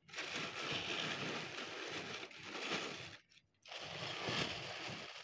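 Dry split chickpeas (chana dal) pouring into a glass bowl of lentils, a dense patter of hard grains. It breaks off about three seconds in and starts again half a second later.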